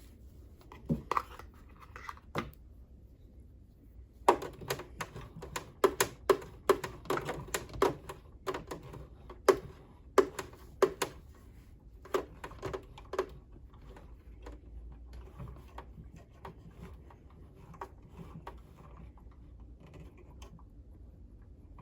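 Irregular sharp clicks and taps from hands and small tools working on a sewing machine while it is oiled and cleaned. They come in a dense cluster in the middle and thin out toward the end.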